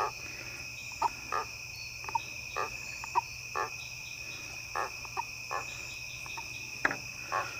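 A hand-held catfish making short squeaks at irregular intervals, about a dozen, over a steady chorus of crickets. Catfish squeak like this when handled, grinding their pectoral spines.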